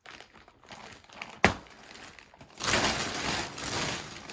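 Thin plastic bag rustling and crinkling as it is untied and pulled open by hand, with one sharp snap about a second and a half in, and louder, fuller rustling over the second half.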